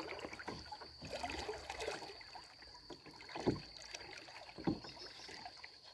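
Faint water sounds of a small boat on a river: a few soft, irregular splashes and sloshes, with a thin steady high tone over them.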